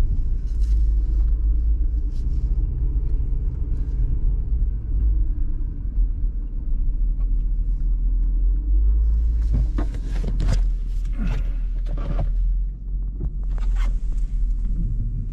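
Steady low rumble of a car driving on icy roads, heard from inside the cabin. A few brief sharper sounds come in between about ten and fourteen seconds in.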